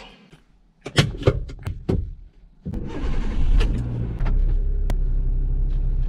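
A few clicks and knocks, then a car engine starting up about three seconds in and running steadily at idle, heard from inside the car.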